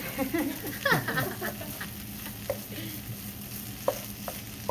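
Wooden spatula stirring and scraping rice around a hot non-stick pan, the rice sizzling in melted coconut cream, with a few light knocks of the spatula against the pan.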